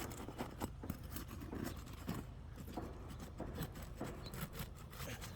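Roofing hand tools scraping and clicking against asphalt laminate shingles as the rows above a damaged shingle are worked loose, in a run of short irregular scrapes and clicks.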